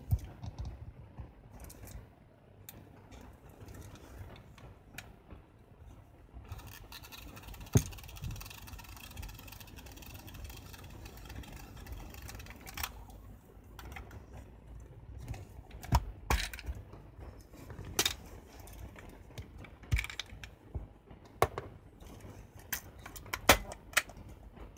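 A Canon A-1 film SLR body being handled in gloved hands: scattered small clicks and knocks of the camera's parts. A few seconds of steady rustling run through the first half.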